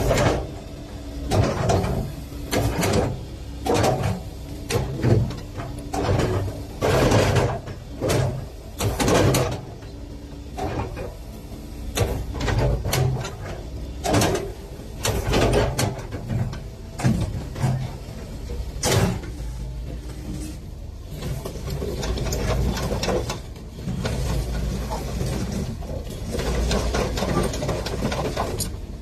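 Sany SY155C excavator's diesel engine running under hydraulic load as the boom and bucket work, with many irregular knocks and clatter in the first two-thirds, settling to a steadier rumble later on.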